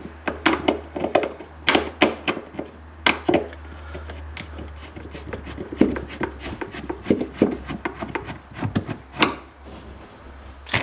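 Hand screwdriver working the screws out of the plastic lower fan cover of a Samsung RS21 fridge: irregular clicks, knocks and scrapes of the tool in the screw and against the plastic panel.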